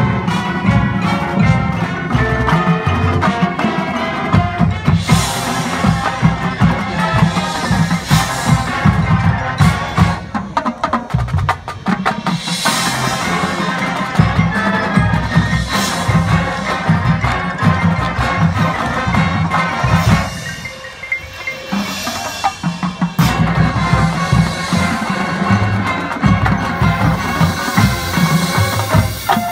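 High school marching band playing its field show: brass over front-ensemble marimbas and drums. It drops to a brief softer passage about twenty seconds in, then the full band comes back in.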